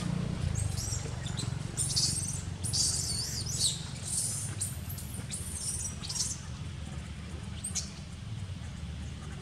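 Macaques screeching: a rapid series of high-pitched, sweeping squeals from about half a second in to around six seconds, with one more near the end, given during a scuffle over an infant.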